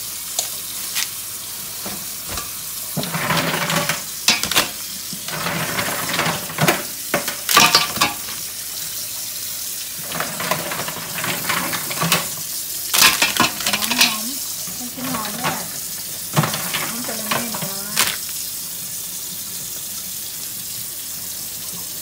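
Mussel shells clicking and scraping in clusters as they are handled and cleaned at a kitchen sink, over a steady hiss of running tap water.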